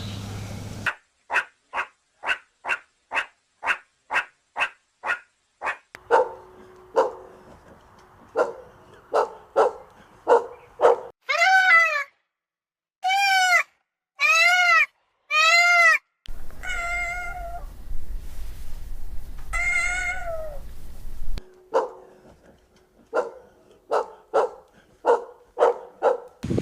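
A run of domestic animal calls in separate clips: short sharp calls repeated about twice a second, then several long cat meows that rise and fall in pitch, then wavering cries over a low hum, then short calls again.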